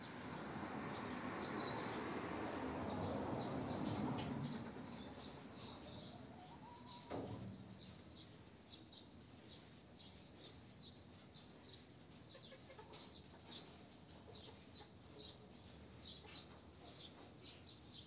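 Domestic pigeons moving in a wire-mesh loft: a rustle of flapping wings for the first few seconds, a single knock about seven seconds in, then faint high chirps repeating.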